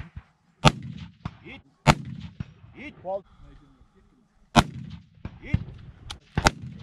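Rifle shots from a firing line of hunting rifles: four loud, sharp cracks spaced one to two seconds apart, with several fainter shots between, each trailed by a short low rumble of echo.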